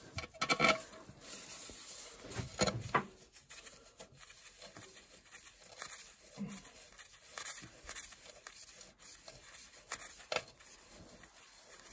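Quiet handling sounds of gloved hands fitting a bolt and metal collet into the rubber-mounted hole of a motorcycle bash plate: soft rubbing and rustling with a few scattered clicks.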